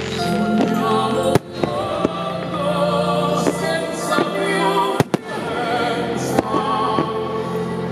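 Fireworks bursting over music with a singing voice: sharp bangs about a second and a half in, a close pair around five seconds, and another about six and a half seconds in.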